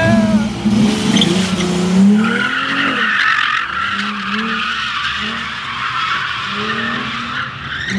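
Dodge Charger engine revving hard, rising and falling. From about two seconds in, the tyres squeal steadily as the car spins donuts, until near the end.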